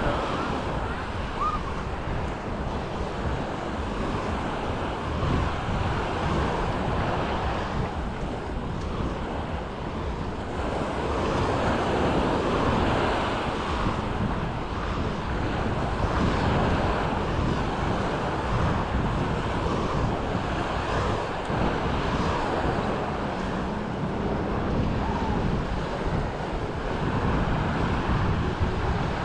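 Sea waves washing onto a beach, the wash swelling and easing every few seconds, with wind buffeting the microphone.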